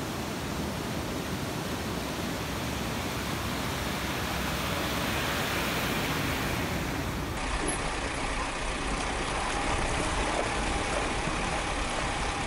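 Off-road van driving on a wet dirt road, a steady mix of engine and tyre noise over rushing water. About seven seconds in, the sound cuts to steady road noise heard from on board a vehicle driving a rough mountain track.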